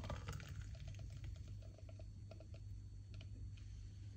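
Thick blended kiwi drink pouring from a blender jug into a glass: faint, with a scatter of small soft ticks and plops as the purée lands.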